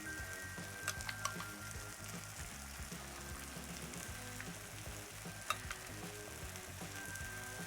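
Cheese frying and sizzling on a Blackstone's steel griddle top, a steady hiss, with a few sharp clicks of a utensil against the griddle about a second in and once more past halfway.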